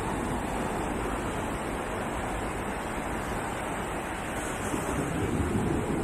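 Sea waves breaking and washing onto the beach, a steady surf noise that swells a little louder near the end.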